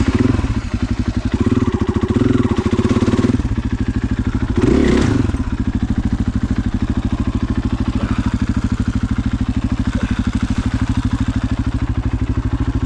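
KTM 500 EXC's single-cylinder four-stroke dirt-bike engine catching at the start and then idling with an even beat, with a short throttle blip about five seconds in.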